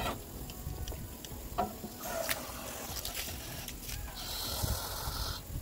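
Garden hose with a jet sprayer running water, starting about two seconds in, growing stronger and cutting off suddenly near the end, after a few light metal clinks of stainless steel dog bowls.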